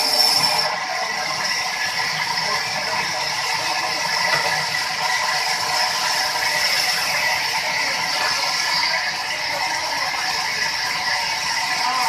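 Large vertical band saw running and cutting along a log as it is fed through: a steady mechanical noise with a high whine.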